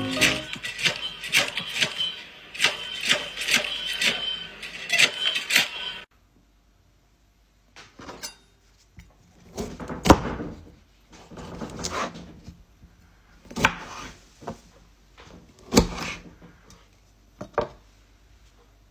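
Kitchen knife cutting limes on a wooden cutting board: a handful of separate sharp knocks as the blade goes through and hits the board, the loudest about ten and sixteen seconds in. Before that, music with a quick clicking beat runs for about six seconds and cuts off abruptly.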